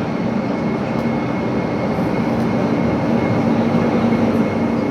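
Electric passenger train on the Laos–China Railway running, a steady loud rumble with a humming drone.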